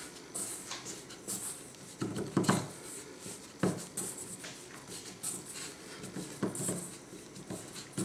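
Hands mixing egg-and-flour pasta dough in a stainless steel bowl: soft rubbing and scraping with a few dull knocks, the loudest about two and a half seconds in.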